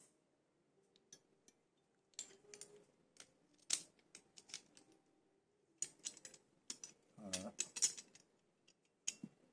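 Irregular clicks and clacks of a hex key working the clamp screw of a plastic scooter mobile-phone holder, metal key against plastic, starting about two seconds in.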